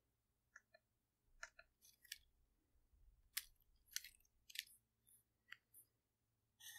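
Near silence broken by about a dozen faint, irregular clicks and taps of a stylus on a tablet screen.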